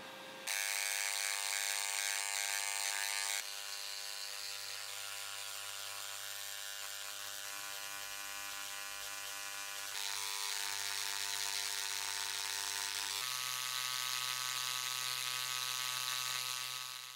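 Handheld electric engraver buzzing steadily as its tip chips petrified rust off the steel sword blade. The buzz starts about half a second in and shifts in pitch and loudness a few times as the tool is worked.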